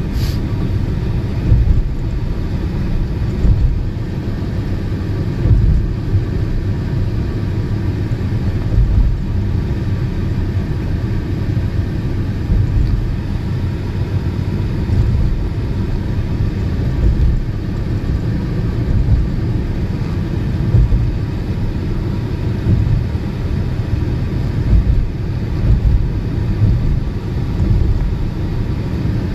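Steady low rumble of tyre and wind noise from an electric car driving along the road, swelling unevenly; a short click right at the start.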